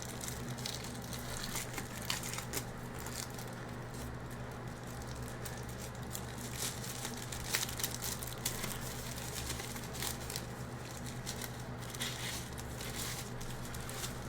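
Packaging being slowly unwrapped by hand: faint crinkling and rustling with scattered small clicks and taps. A steady low hum runs underneath.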